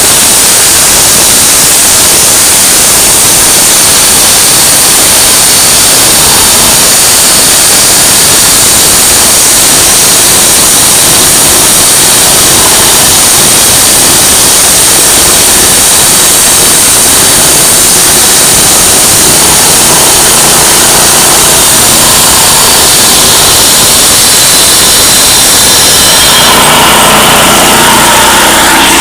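An engine running steadily under a loud hiss. About three-quarters of the way through, its note becomes clearer and steadier.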